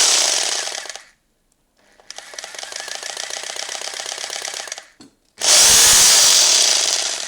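Electric rotary hammer run three times in short bursts, the motor winding down after each release of the trigger. The middle run is quieter and carries a fast, even rattle.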